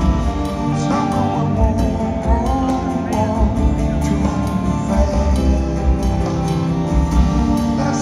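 Full band playing live, recorded from the crowd: strummed acoustic guitar, electric bass with heavy low end, and trumpet.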